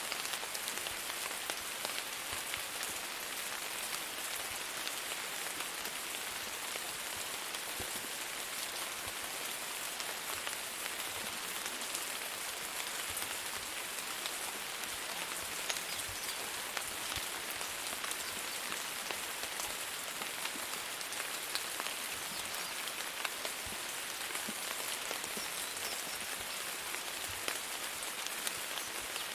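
Steady rain falling, an even hiss made of many small drop impacts, with no change in strength.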